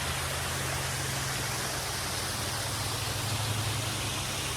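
Water from a small waterfall and stream running steadily, a constant rushing hiss, with a steady low hum underneath.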